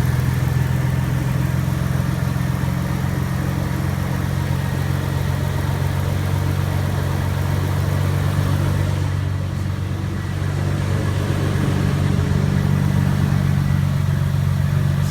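2012 Toyota FJ Cruiser's 4.0-litre V6 idling steadily, a low even hum.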